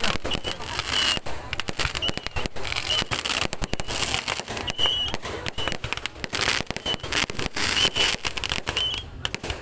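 Fireworks and firecrackers going off in a dense, continuous string of rapid bangs and crackles.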